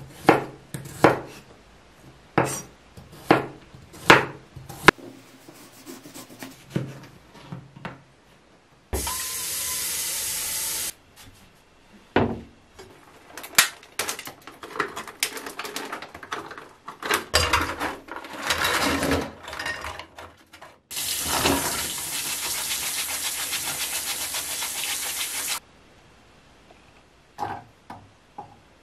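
Chef's knife chopping garlic on a wooden cutting board: a run of sharp chops. Then a kitchen tap runs into a stainless steel sink twice, briefly and then for about five seconds, with plastic-tray rustling and clatter from handling scallops in between.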